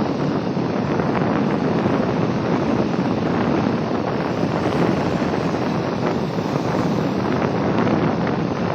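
Steady wind blowing across the microphone, with sea surf washing on a beach beneath it.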